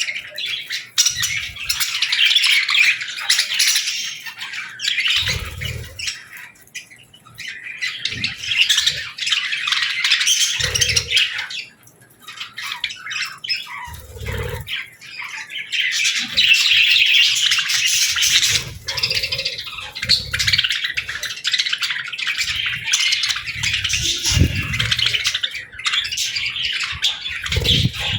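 Budgies and lovebirds chirping, squawking and chattering nonstop, many birds calling over one another, with occasional short low thuds.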